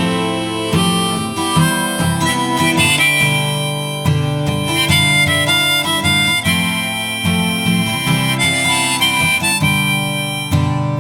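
Harmonica playing a melody of held notes over steadily strummed acoustic guitar, an instrumental break in a folk song.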